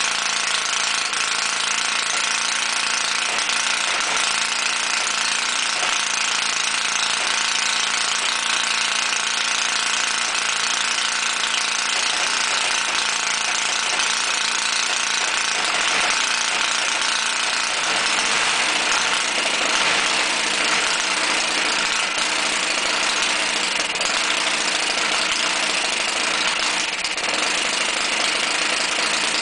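Model 90-degree V-twin spark-ignition engine, fired by two separate ignition systems, running steadily with a fast, even mechanical chatter. Its note changes about two-thirds of the way in.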